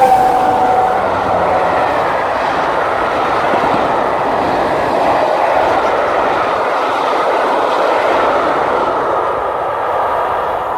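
Steam train hauled by the A1 Pacific locomotive Tornado passing at speed: the tail of its whistle drops in pitch as it goes by and stops about a second in, then the steady rush of the train going past, fading near the end.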